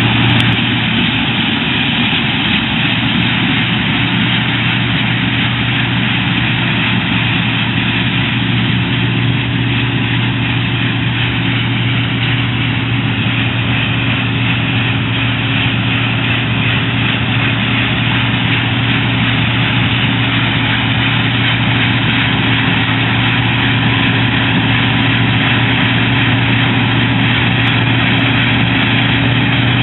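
Claas Dominator 80 combine harvester running steadily: a constant low diesel engine hum under a broad, even rushing noise from the machine.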